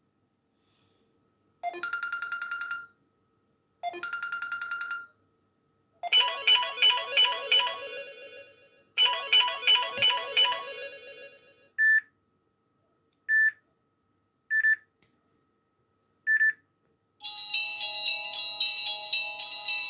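Samsung Galaxy Tab3 Lite tablet ringtones previewed one after another through the tablet's own speaker. First come two short chimes, then a quick melodic phrase played twice, then four short single beeps a second or two apart, and near the end a fuller bell-like ringtone begins.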